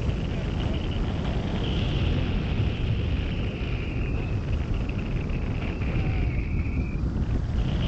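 Airflow rushing and rumbling over the microphone of a wing-mounted camera on a hang glider in flight, with a thin high whistle that wavers in pitch and drops out about seven seconds in.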